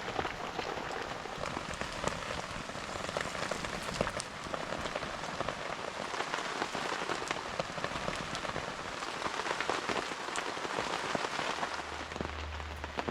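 Steady rain falling on a camping tarp, with many individual drops ticking sharply against it. A low hum comes in near the end.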